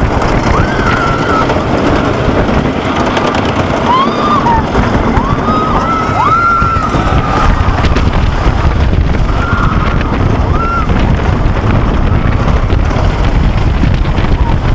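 Wooden roller coaster train running on its track, heard from a rider's head-mounted camera: a loud steady rumble with wind buffeting the microphone. Short, wavering high-pitched cries sound over it in the first half.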